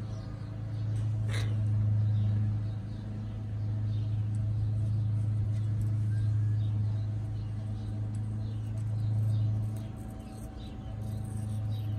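A steady low motor hum runs throughout, with faint high chirps and squeaks of birds scattered over it and one quick sharp call about a second and a half in.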